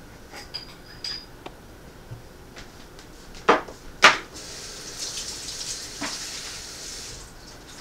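Dishes knocking together twice at a kitchen sink, then the kitchen tap running for about three seconds.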